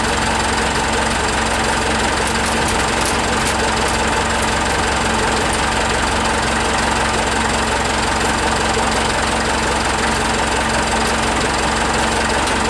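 An engine idling steadily, an unchanging mechanical drone with no change in speed.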